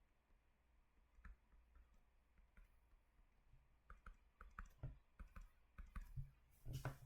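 Near silence with faint, irregular small clicks, sparse at first and coming more often in the second half, with a slightly louder cluster near the end.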